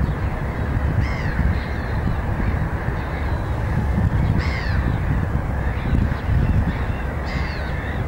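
A flock of gulls calling, several short cries at intervals over steady low wind noise on the microphone.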